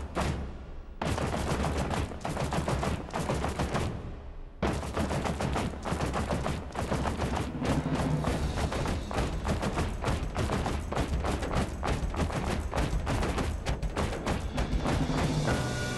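Rapid, dense run of sharp percussive strikes, many a second, over a low steady hum, breaking off twice for under a second near the start. Just before the end, pitched music comes in.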